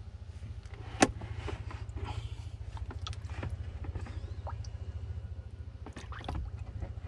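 A small 12-volt bilge pump running submerged in a bucket of water: a low steady hum with a fast pulsing. Over it come splashes and knocks as a hand works grease and debris out of the clogged pump, with the sharpest knock about a second in.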